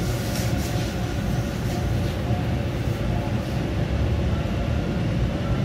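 TTC Line 2 subway train running along a station platform, heard from inside the car: a steady rumble of motor and wheel noise on the rails.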